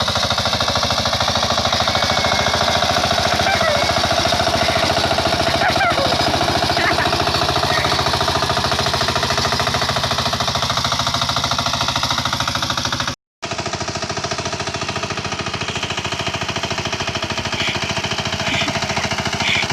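A small engine running steadily with rapid, even firing pulses. The sound cuts out completely for a moment about thirteen seconds in.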